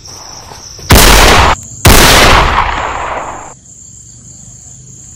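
Two very loud pistol shots about a second apart, the second trailing off over a second or so, with crickets chirping steadily behind.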